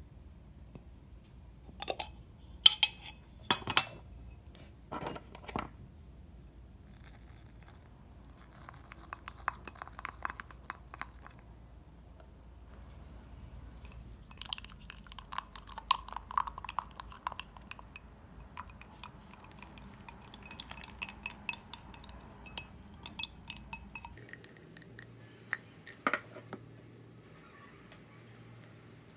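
Kitchen utensils and bowls clinking and tapping in irregular clusters of sharp little knocks, the sounds of hands at work preparing bread ingredients or dough.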